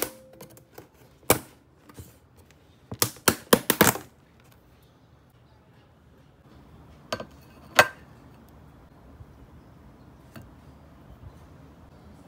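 Lid of a clear plastic food container being pried off: sharp plastic clicks and snaps, a quick run of them a few seconds in, then two more clicks later.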